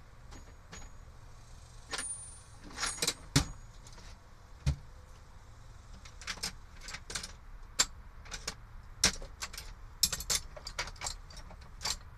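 Metal sockets and tools clinking and rattling as they are rummaged through while searching for a socket adapter: irregular sharp clinks, a few ringing briefly.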